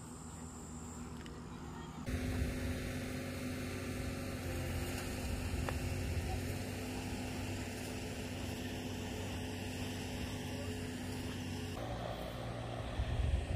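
A steady low mechanical hum holding several steady tones, which steps up sharply in level about two seconds in and shifts again near the end.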